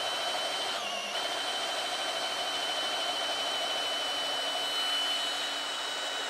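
Kobalt 24V cordless drill running in low gear under load, driving a long auger bit into a log: a steady motor whine whose pitch dips briefly about a second in as the bit bites, then holds.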